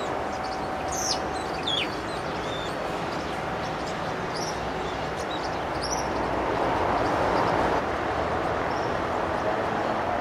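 Several short, high, falling bird chirps in the first few seconds, over a steady noisy background that swells for a couple of seconds past the middle.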